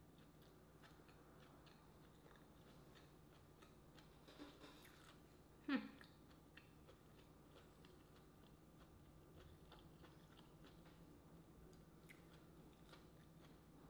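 Soft chewing of food, with faint wet mouth clicks and smacks throughout and one louder, brief mouth sound about six seconds in.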